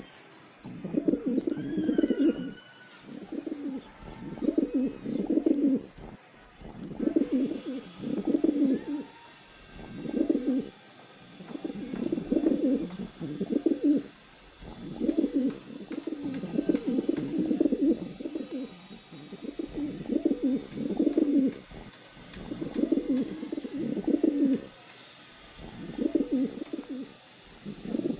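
Pigeons cooing over and over, low pulsing coos in bouts of a second or so, repeating about every two seconds.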